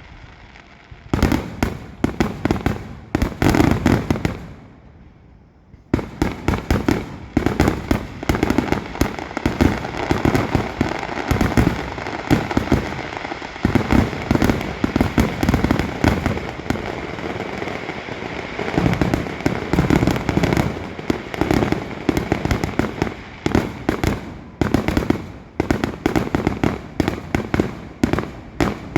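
Aerial fireworks display: a dense run of bangs and crackling bursts, with a short lull about five seconds in before the barrage resumes and keeps up without a break.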